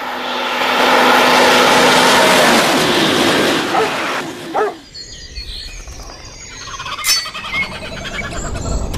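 A loud, steady rushing noise that drops away after about four and a half seconds, followed by a quieter mixed outdoor background with a few faint chirps and clicks.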